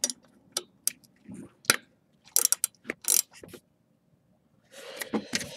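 Ratchet wrench clicking in short, irregular bursts while loosening the nuts that hold a turbocharger's wastegate actuator.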